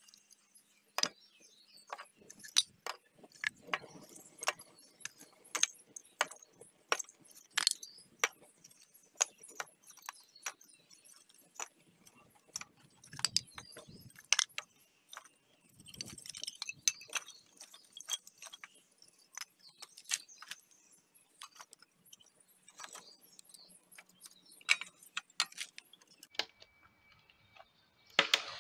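Dry kindling in the firebox of a wood-fired furnace as the fire is lit and built: many sharp, irregular clicks with a few light knocks.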